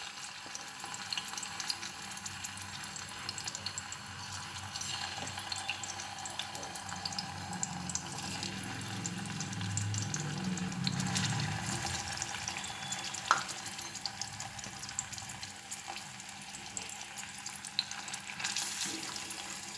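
Stuffed bitter gourds frying in a little hot oil in an aluminium kadhai: a quiet, steady sizzle and crackle, with a single sharp tick a little past the middle.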